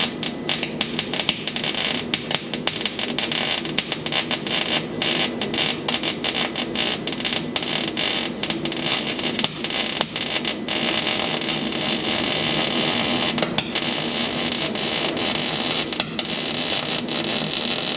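Electric arc welder laying a continuous bead on truck-bed sheet metal: a steady crackle full of irregular sharp pops that stops abruptly at the end.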